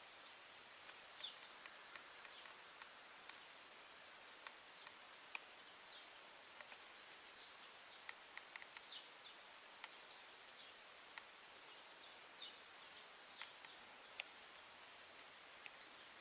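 Faint, sparse bird chirps over a steady hiss of outdoor ambience, with a few small scattered clicks.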